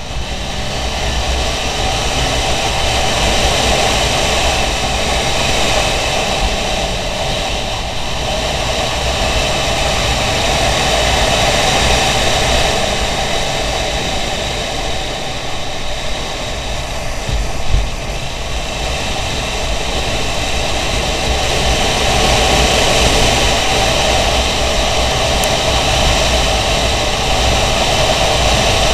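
Motorcycle riding at road speed: a steady rush of wind over the camera with the engine running underneath, and one short knock a little past halfway.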